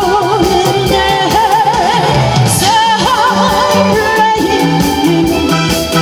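A woman singing a Korean trot song into a microphone with wavering vibrato, over instrumental accompaniment.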